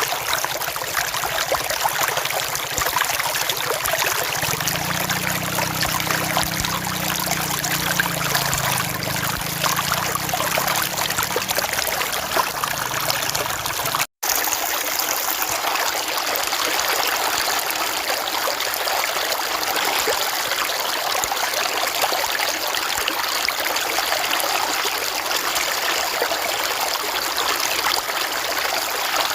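River water flowing steadily, a continuous rushing and trickling over the stream bed. The sound cuts out for a split second about halfway, then resumes.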